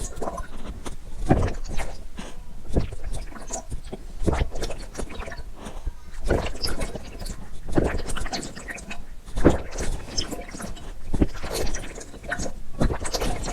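A person drinking water, close up: a run of gulps and swallows, unevenly spaced, a strong one every second or two.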